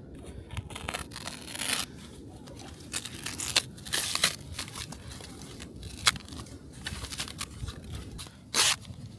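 Packaging being torn and handled, with irregular short ripping and rustling sounds, one of the louder rips near the end.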